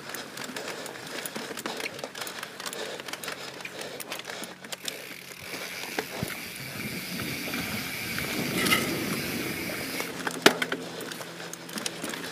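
YT Jeffsy 27 mountain bike rolling over a dirt singletrack: steady tyre noise on dirt, with frequent clicks and rattles from the bike over bumps.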